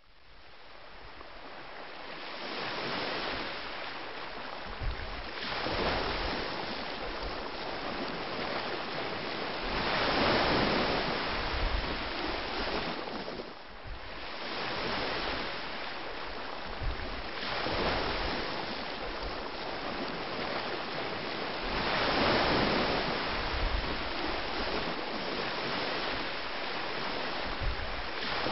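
Waves washing in slow swells, each rising and falling over about four seconds, with wind under them; it fades in from silence at the start.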